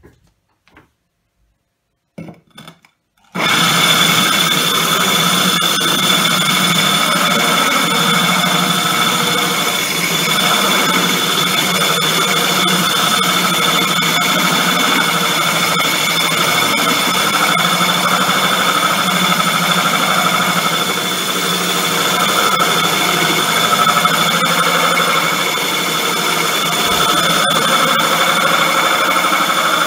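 Power drill with a diamond-tipped bit grinding a hole through 10 mm aquarium glass. It starts about three seconds in and then runs steadily: a constant whine over a grinding hiss.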